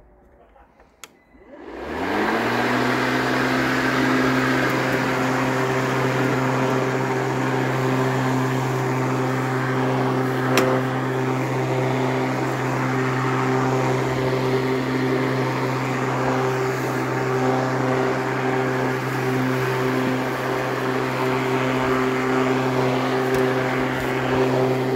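Makita DLM330SM 18V cordless lawnmower's electric motor and blade starting about a second and a half in after a couple of clicks from the handle's switch lever. It spins up within about half a second, then runs at a steady hum.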